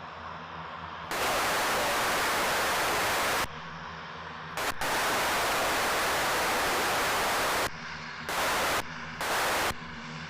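Air-traffic-control radio hissing with static in bursts that switch on and off abruptly: two long bursts of a few seconds, then two short ones near the end.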